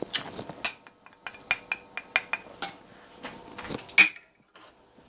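Metal spoon clinking and tapping against a glass mixing bowl and a plate as spice powders are scraped into the bowl: a quick string of sharp clinks over about four seconds.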